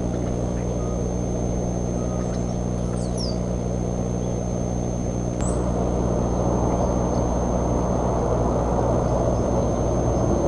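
Steady low mechanical hum with a rushing noise, slightly louder from about five seconds in. A few faint small-bird chirps and a short falling whistle come through about three and five seconds in.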